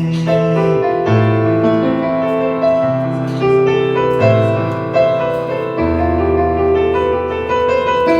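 Instrumental music between sung lines of a Turkish love song: a keyboard plays a slow melody over sustained bass notes, with no singing.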